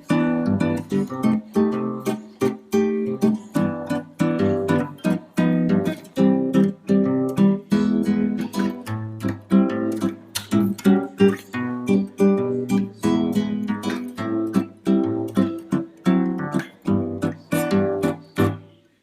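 Background music: acoustic guitar played with quick plucked and strummed notes in a steady rhythm.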